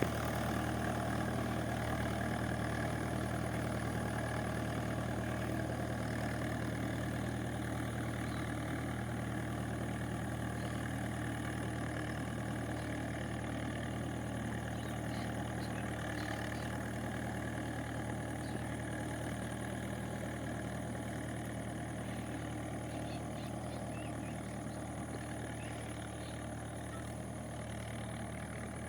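Mahindra 475 DI tractor's four-cylinder diesel engine running steadily under ploughing load, growing slightly fainter over the stretch.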